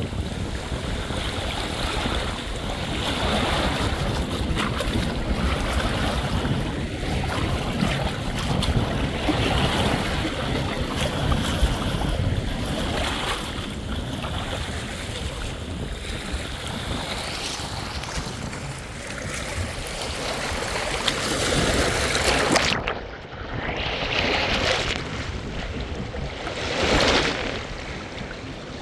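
Sea waves washing on the shore with wind buffeting the microphone. About 23 seconds in the sound changes abruptly to separate swells of water surging in and falling away.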